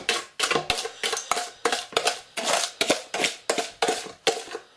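Wire whisk beating egg yolks and sugar by hand in a plastic mixing bowl, each stroke a light clack against the bowl, about three strokes a second.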